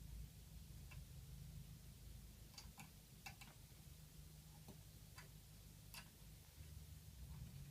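Near silence: a faint low hum with a few light, irregular clicks and ticks scattered through it.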